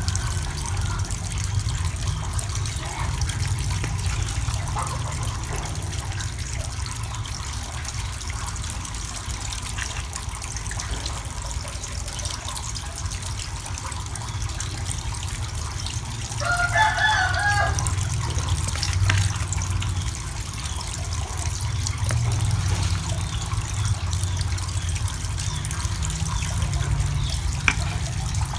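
Water running from PVC pipes into an eel tank, over a steady low hum. About 17 seconds in, a rooster crows once, lasting over a second.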